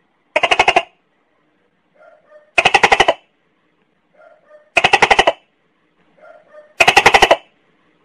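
Tokay gecko calling: four loud pulsed calls about two seconds apart, each a rapid rattle lasting about half a second and led in by a short, much softer note.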